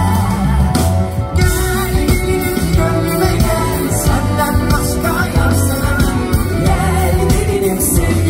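Live pop band music with a steady beat and a strong bass line.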